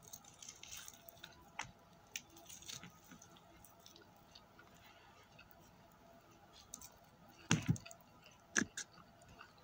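Fried chicken being pulled apart by hand, with small soft crackles and squishes of breading and meat, and a couple of louder sharp sounds near the end.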